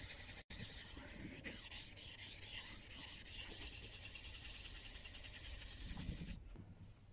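Back of a Marples Gold Chip chisel scraping back and forth on a wet 8000-grit waterstone, a rasping rub. It breaks off briefly about half a second in, and near the end gives way to a softer rub on a 10,000-grit waterstone.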